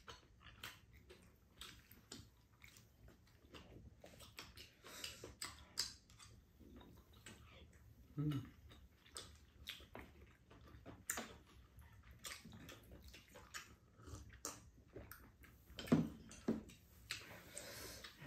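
Quiet eating sounds: wooden chopsticks and a spoon clicking against bowls and a pan, with chewing and mouth noises of people eating tteokbokki. A brief low murmur comes about 8 seconds in and again near 16 seconds.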